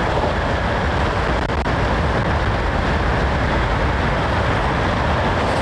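Steady rush of wind and road noise on the microphone of an e-bike coasting downhill at about 28 mph.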